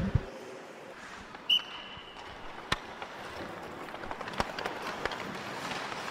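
Ice hockey drill on a rink: skates scraping the ice, with a few sharp clacks of sticks and puck. A short, high whistle blast sounds about a second and a half in.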